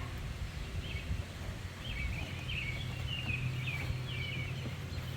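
Background sound of a bird chirping and twittering over a steady low rumble.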